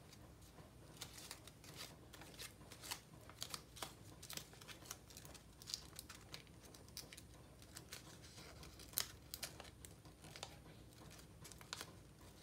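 A sheet of paper crinkling and rustling in the hands as it is folded and creased: faint, irregular crisp crackles, with one louder snap about nine seconds in.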